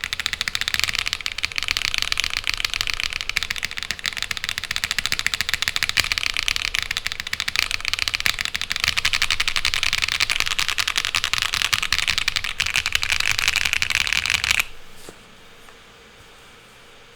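Continuous fast typing on a 75% mechanical keyboard, the Tomo Monokei x TGR, fitted with linear, high-pitched, clacky Hyacinth V2 switches and GMK keycaps: a dense, even stream of sharp keystroke clacks. The typing stops abruptly about three seconds before the end.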